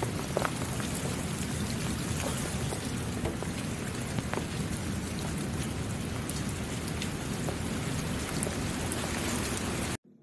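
Steady heavy rain falling on a surface, a dense hiss with scattered individual drop ticks, cutting off suddenly near the end.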